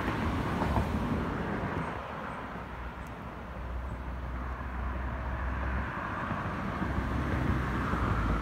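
Steady low outdoor background rumble, with no distinct event; it dips slightly about three seconds in.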